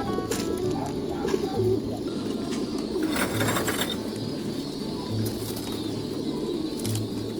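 Many domestic pigeons cooing at once, a dense overlapping chorus of low coos.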